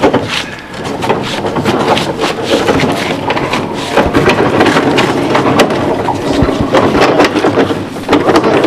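A heavy black cabinet being shoved and manhandled across a stone path by several people: a continuous clatter of repeated knocks, bumps and scraping.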